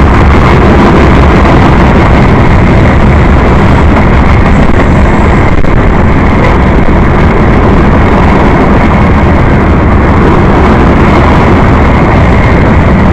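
A freight train rolling past, a loud, steady roar of its cars' wheels on the rails with no horn.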